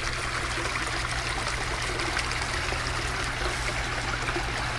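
Water trickling steadily into a koi pond from the filter outflow, with a low steady hum underneath.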